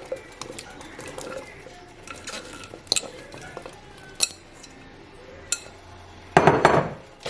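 Kitchenware clinking, with a few sharp knocks against the Dutch oven. Near the end there is a loud clattering rush as quartered potatoes are tipped into the pot of stew.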